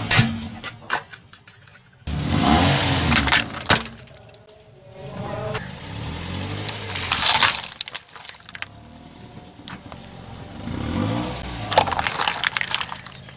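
A car tyre rolling over and crushing plastic objects: sharp cracks as a plastic toy watering can gives way, then crunching and popping as plastic cups of liquid and a cup of glass marbles are flattened, with a low rumble from the car between.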